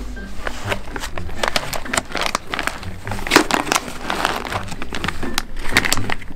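Foil cat-food bags crinkling as they are handled and set down in a cardboard box, in a run of short rustles that come thickest in the second half.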